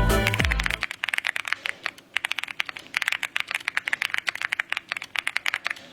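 Background music stops about a second in. Then fast, irregular key clacks follow: typing on a mechanical keyboard fitted with thick PBT XDA-profile keycaps.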